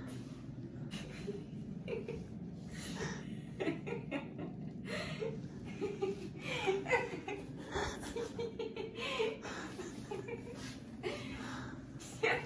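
Laughter in short, choppy bursts, mostly from about three seconds in until near the end, over a steady low hum.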